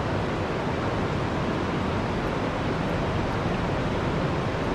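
Steady rush of river water running over a rocky riffle.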